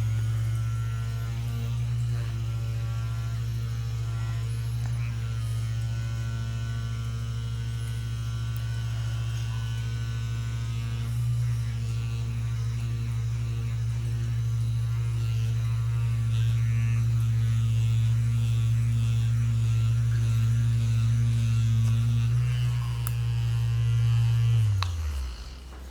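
Electric percussion/vibration massage device running with a steady low hum, then switched off near the end, its pitch dropping as the motor winds down.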